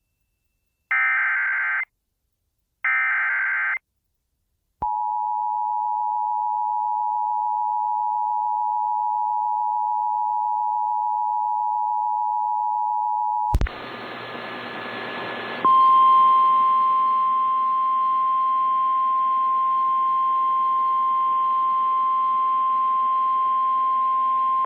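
The end of an Emergency Alert System SAME header: two short bursts of warbling digital data about a second apart. Then comes the EAS two-tone attention signal (853 and 960 Hz together), held steady for about nine seconds, announcing a severe thunderstorm warning. After a click, radio hiss comes in and a NOAA Weather Radio 1050 Hz warning alarm tone sounds steadily for about nine seconds over the static.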